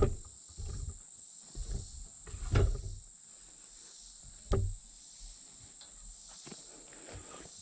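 A few short knocks and scrapes, the loudest about two and a half and four and a half seconds in, over a steady high-pitched insect-like drone.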